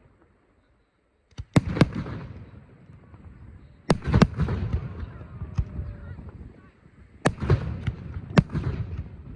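Aerial fireworks bursting: sharp bangs in clusters of two to four, starting about a second and a half in and recurring every few seconds, each followed by a low rumbling echo.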